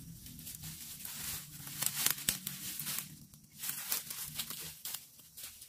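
Dry leaves, twigs and brush crackling and rustling as someone pushes through undergrowth, a quick, irregular run of snaps and crunches.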